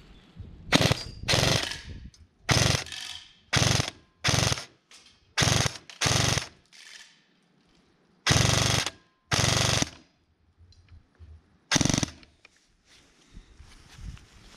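A CYMA CM.041SD6 high-speed MP5SD6 airsoft electric gun firing about ten short full-auto bursts, each well under a second long. Its gearbox cycles at the stock rate of about 25 shots a second.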